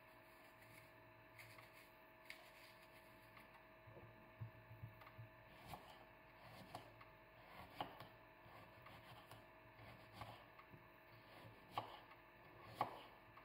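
Small kitchen knife slicing an apple on a wooden cutting board: faint scattered cuts and taps of the blade against the board, a few louder ones near the end.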